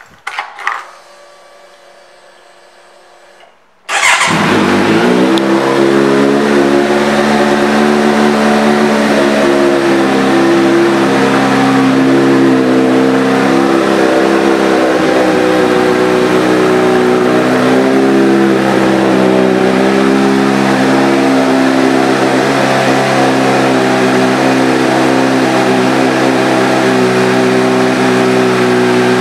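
2020 Kawasaki Z900's 948 cc inline-four fired up about four seconds in, catching at once and settling to a steady idle through its aftermarket exhaust. Before the start there are a few light clicks and a faint hum with the ignition on.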